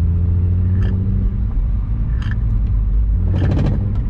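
Single-turbo BMW 135i with an N54 inline-six, heard from inside the cabin while driving: a steady low drone of engine and road noise, with a faint higher tone in the first second or so and a few light ticks.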